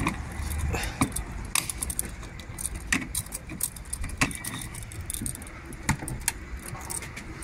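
A bunch of keys jingling and clicking against a motorhome's locking diesel filler cap as the cap is turned shut with its key: a string of sharp, irregular clicks over a low steady hum.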